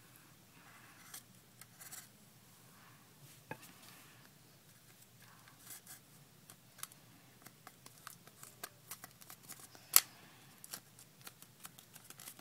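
Light handling sounds from a plastic cup and a paper picture being glued together: scattered small clicks and soft rustles, with one sharp click about ten seconds in.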